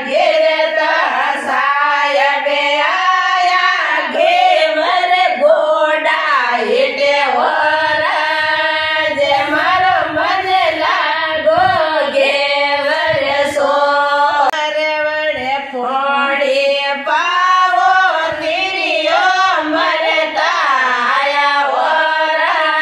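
Women's voices singing a Marwari folk song together in one melody line.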